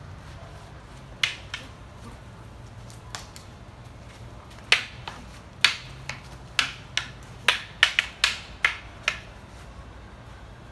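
Wooden krabi practice swords clacking together in sword sparring: a couple of sharp strikes about a second in, then an irregular flurry of about a dozen quick clacks from about five to nine seconds in.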